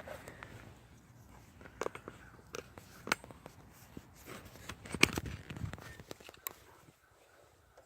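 Scattered light clicks and knocks of things being handled, about half a dozen sharper ones, the loudest about five seconds in, fading out near the end.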